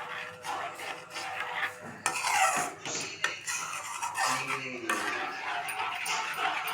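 Metal utensil clinking and scraping against a cooking pan, in a run of small irregular knocks and rubs.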